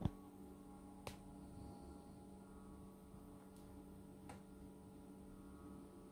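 Faint steady electrical-sounding hum, with a sharp click at the very start and a few lighter clicks and ticks after it.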